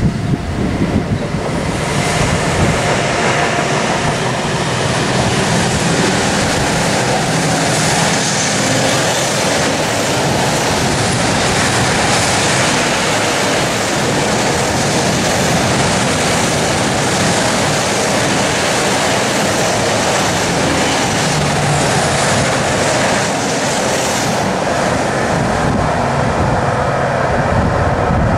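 Rolling-highway freight train, lorries carried on low-floor wagons, passing close by: a steady rush and rumble of wheels on rail that builds about two seconds in and then holds.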